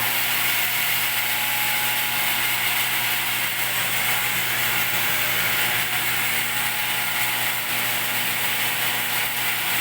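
Reverse osmosis pump of a water refilling station switching on and running steadily, an electric motor hum with a loud hiss over it.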